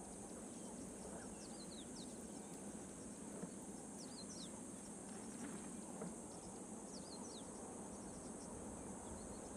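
Faint bush ambience: a steady high-pitched insect buzz, with a bird's short falling chirps, two or three at a time, coming back every two to three seconds.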